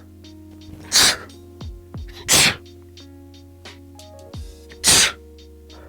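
A man sneezing loudly three times: about a second in, a second and a half later, and again near the end. Background music with a deep bass beat plays under the sneezes.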